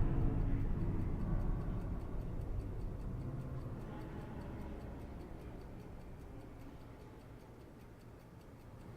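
Steady, evenly spaced ticking, with a low rumble underneath that fades away gradually.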